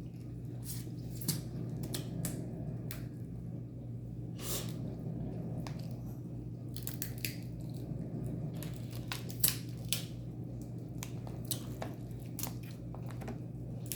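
Crab being eaten close to the microphone: shells cracked and pulled apart without a cracker, with chewing and wet mouth sounds. These come as scattered clicks and crunches over a steady low hum.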